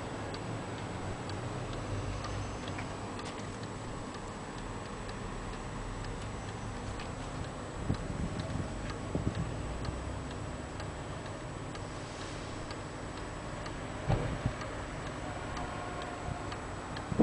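Weight-driven Dutch Zaandam wall clock with two brass weights, its movement ticking steadily over a low rumble, with a few soft thumps about halfway through and again near the end.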